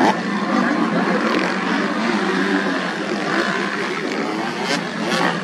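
Motocross bike engines running and revving together during a grasstrack race, their pitch rising and falling.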